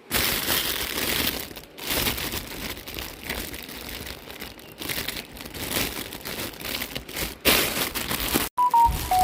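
Packaging being handled and crinkled: paper and plastic rustling and crumpling in irregular bursts. A few short electronic tones come in at the very end.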